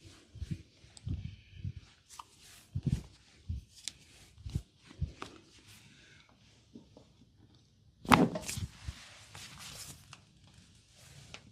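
Hands working on a client's head and neck during a massage: a run of soft, low thumps, then one louder, sharp impact about eight seconds in, followed briefly by rubbing.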